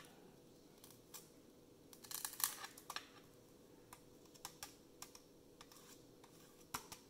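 Faint, scattered clicks and taps of metal tweezers against a metal tray, with a denser run of clicking about two seconds in.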